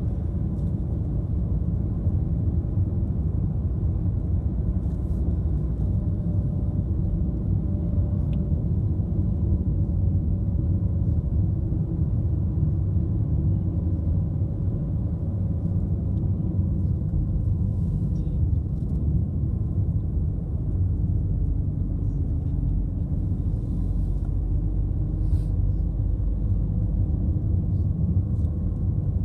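Car driving along a road: a steady low rumble of engine and tyres, with a faint hum that slowly shifts in pitch.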